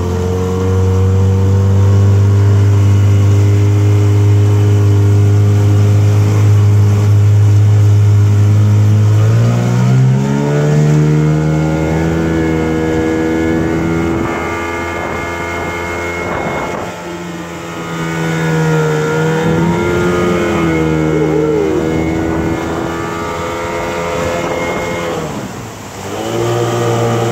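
1979 Johnson 9.9 hp two-cylinder two-stroke outboard running at a steady low speed, then throttled up about ten seconds in. Its note rises and holds higher, wavering a little as it pushes the boat at speed on a new propeller. It eases off briefly near the end.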